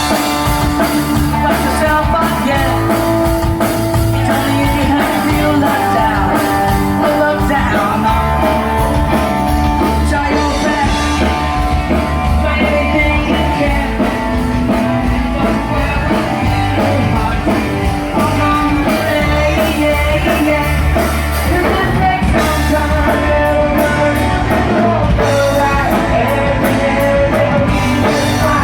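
Live rock band playing at full volume: a singer over electric guitar, bass guitar and a drum kit, with no break in the music.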